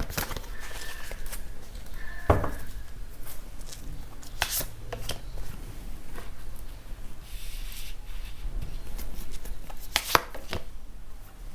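Tarot cards being shuffled and handled on a table: scattered, irregular clicks and taps.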